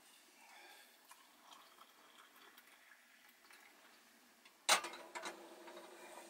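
Faint, steady hiss from a stovetop kettle heating on a gas hob. About three-quarters of the way in comes a sudden clunk as the metal kettle is set down on the hob's pan supports, followed by a few light knocks.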